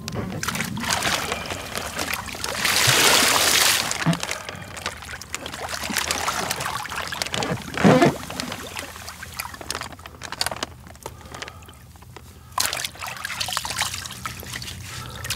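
Water sloshing and splashing as a man bathes in a plastic-lined pit of water, scooping and pouring it over himself. There is a longer pour about three seconds in and a sharper splash about eight seconds in.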